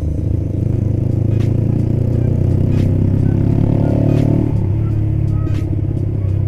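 Motorcycle running through an aftermarket exhaust under acceleration on the road: the engine note rises steadily for a couple of seconds, then drops abruptly about four and a half seconds in as the throttle eases or a gear changes.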